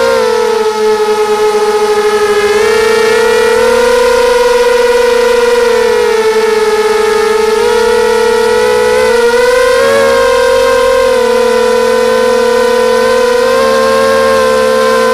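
Brushless motors and propellers of a QAV250 racing quadcopter heard from its own onboard camera: a loud, continuous whine whose pitch drifts up and down a little with the throttle, dipping and climbing again about two-thirds of the way through.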